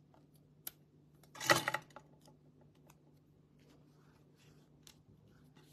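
A small hand tool clattering as it is set down on a plastic craft mat, once, about one and a half seconds in. Faint taps and rustles of card being handled before and after.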